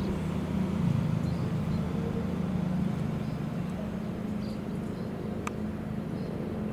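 KA BIAS diesel multiple-unit train departing, its engines running with a steady low drone that slowly fades as it pulls away. A single brief click about five and a half seconds in.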